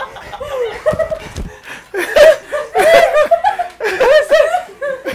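People laughing in several loud bursts, about one a second.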